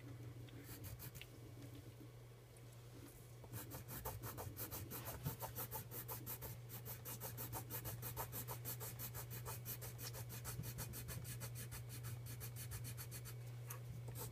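Pencil crayon shading on paper: rapid back-and-forth scratchy strokes, growing denser and a little louder from about three seconds in.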